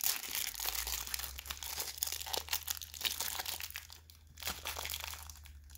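Clear cellophane wrapper on a trading card crinkling and crackling as fingers pick and pull at it to tear it open; the wrapper resists ripping. The crackling thins out briefly about four seconds in.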